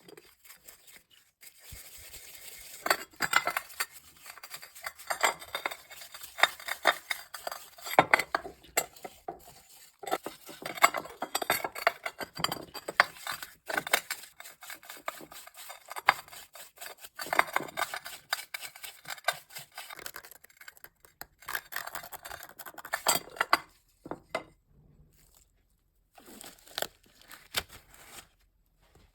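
Metal parts of an old hand drill clinking and scraping as they are worked on by hand, in irregular clusters of clicks and rasps that die away near the end.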